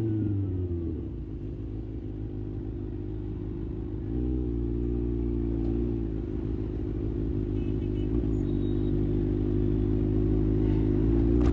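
Kawasaki ZX-6R's inline-four engine: its revs fall away in the first second, then it runs steadily at low revs. There is a slight lift in the note about four seconds in.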